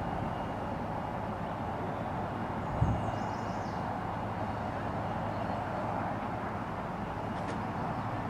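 Steady outdoor background noise with a faint low hum, and one soft thump about three seconds in.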